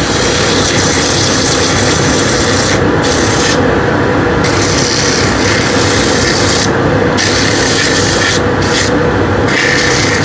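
Sandpaper rubbing against a turned wooden piece spinning on a Vicmarc VL300 wood lathe: a steady rough hiss over the lathe's running hum. The hiss drops out briefly a few times.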